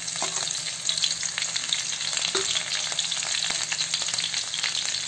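Chopped green chilli and mustard seeds sizzling in hot oil in a kadhai, a steady frying hiss with many small crackling pops.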